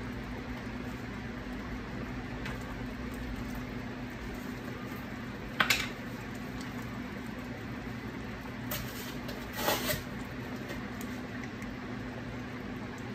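Chicken simmering in a pan of liquid over a steady low hum, with a sharp click of a jar being opened about halfway through and a short rattle a few seconds later.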